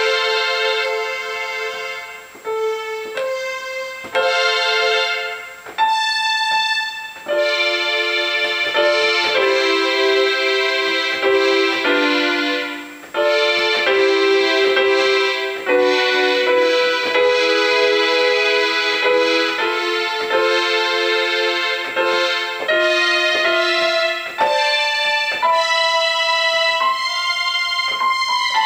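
Keyboard instrument with an electric-piano-like voice, played from a Roland A49 MIDI keyboard: a melody over held chords, each note starting sharply and sustaining, in phrases broken by short pauses.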